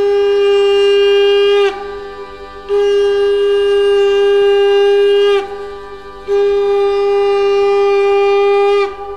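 Conch shell (shankha) blown in three long blasts, each a steady note that sags in pitch as it ends, with short breaths between.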